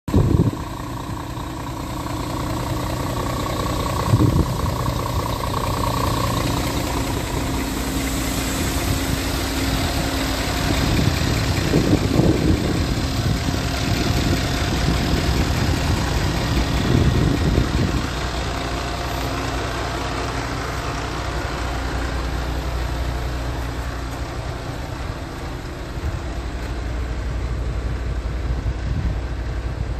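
Scania R480's straight-six diesel engine idling steadily. A few louder bumps break in, right at the start and about four seconds in.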